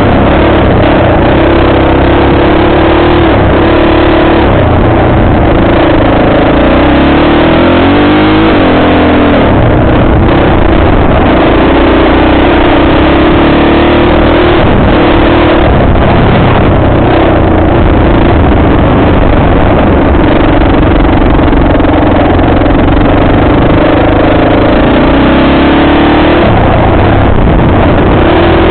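Off-road vehicle engine running loud and steady under throttle on a dirt trail, its revs dipping and rising again about eight seconds in and climbing near the end.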